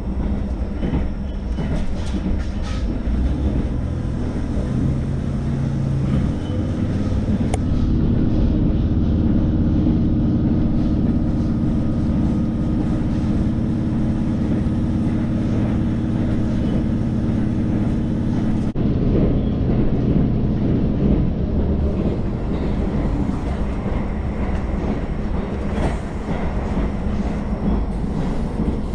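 Cabin sound of a JR Hokkaido H100 diesel-electric railcar under way: a continuous diesel drone with rail noise and a few wheel clicks over rail joints. The drone grows louder and steadier about eight seconds in and eases back about eleven seconds later.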